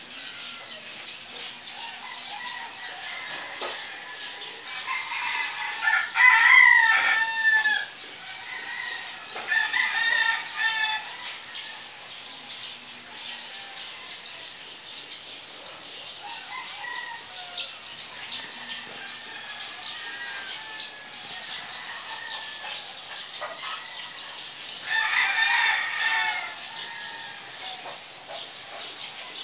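Rooster crowing three times, loudest about six seconds in, again near ten seconds and near twenty-five seconds, with fainter chicken calls between.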